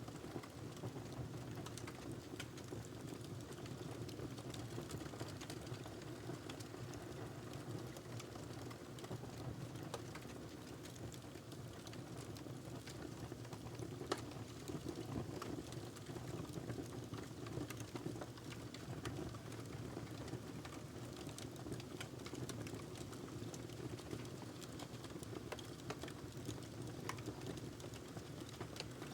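Wood fire burning in a fireplace: a steady low rumble of flames with frequent small sharp crackles and pops from the burning logs, one louder pop about halfway through.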